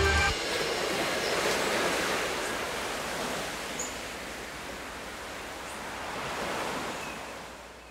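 Ocean surf breaking and washing over a rocky shore: a steady rushing sound that swells and ebbs, then fades away near the end.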